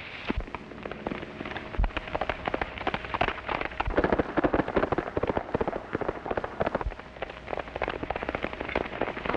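Rapid clatter of galloping horses' hooves with several gunshots among it, on an old film soundtrack. The clatter is densest and loudest about four seconds in.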